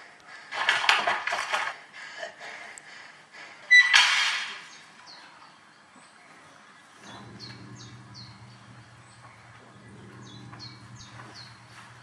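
A horror film's soundtrack heard through cinema speakers: two loud rushes of noise, the second a sudden hit about four seconds in, then a low steady drone with short high bird chirps over it.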